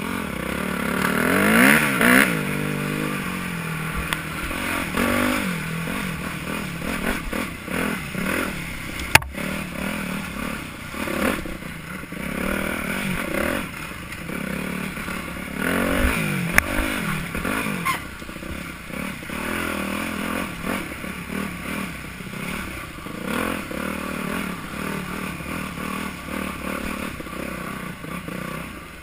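Yamaha YZ250F's single-cylinder four-stroke engine revving up and falling off again and again as the bike is ridden hard along a rough trail, with clatter and knocks from the bike over the bumps. One sharp, loud knock about nine seconds in.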